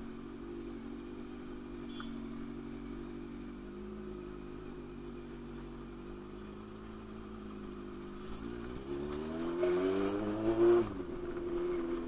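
Sport motorcycle engine running steadily at low revs in slow traffic. About eight and a half seconds in, the revs climb for about two seconds, then drop off abruptly.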